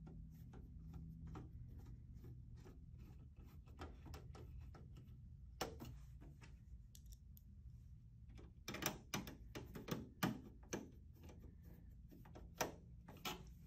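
Faint clicking of a screwdriver tightening the screws of a DVR's metal case lid, with louder knocks and clicks in the last few seconds as the metal case is handled.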